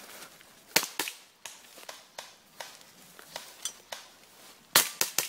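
Airsoft pistol shots: two sharp cracks about a quarter second apart around a second in, then a quick burst of three near the end, with fainter snaps in between.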